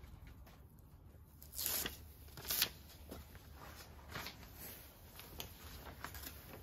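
Paper backing liner of a self-adhesive Velcro loop strip being peeled off and handled, rustling and crackling. The two loudest rustles come about one and a half and two and a half seconds in, followed by smaller crackles.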